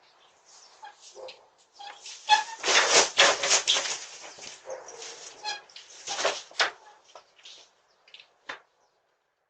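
A dog barking in a rapid run of short barks, starting a couple of seconds in, loudest early in the run and thinning out toward the end.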